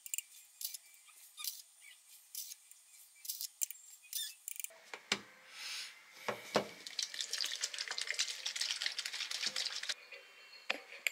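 Infant formula being made up: a plastic scoop clicks and taps against a plastic cup in a quick run of small sharp clicks. About halfway, a few louder plastic clacks, then a Hegen plastic baby bottle is shaken to mix the formula, a steady hissing slosh that stops near the end.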